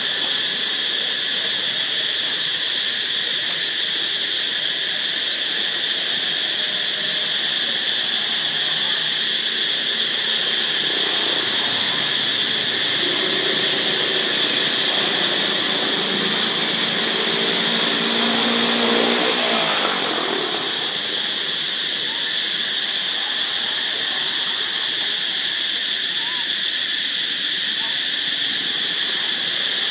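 Steady, high-pitched drone of an insect chorus. From about a third of the way in a motor vehicle's engine grows louder, and its note falls as it passes about two-thirds of the way through.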